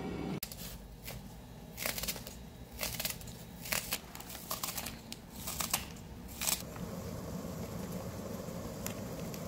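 Plastic instant noodle packet crinkling as it is handled and torn open, in a string of short irregular rustles. Near the end the rustling stops and a steady low hum is left.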